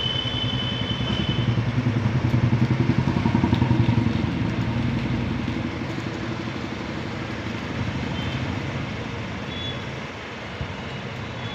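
A small vehicle engine running with a fast, even firing pulse. It grows louder about two seconds in and fades away after about five seconds, as if passing by.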